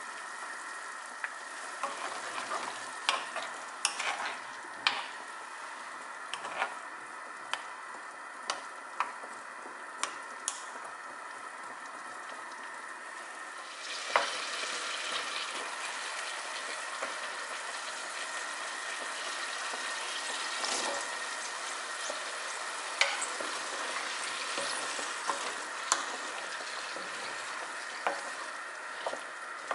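Soy-braised baby potatoes sizzling as the sauce reduces in a pan, with scattered sharp clicks of a wooden spoon stirring against the pan. About halfway through the sizzling grows louder.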